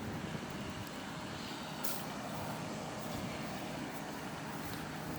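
Steady noise of road traffic passing on a busy road, with a brief click about two seconds in.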